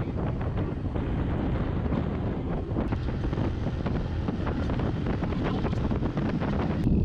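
Heavy wind buffeting the microphone: a steady low rumble with many short crackles.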